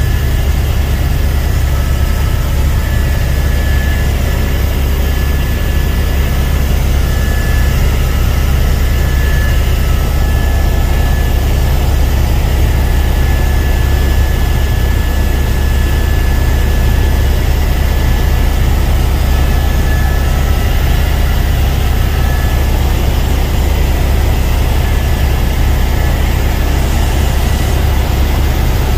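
Helicopter in flight heard from inside the cabin: a loud, steady drone of engine and rotor, with a thin high whine running through it.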